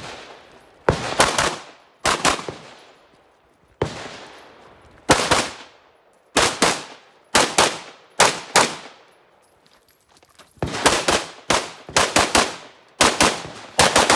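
Rifle shots fired in a rapid string, mostly in quick pairs and threes with short pauses between groups, each crack followed by a ringing echo that fades over about half a second.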